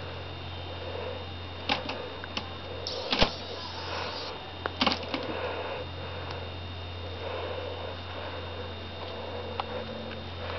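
Light taps, scratches and rustles as a cat bats at a wooden stick on a fluffy cat bed, with a few sharper knocks about 3 s and 5 s in, over a steady low hum.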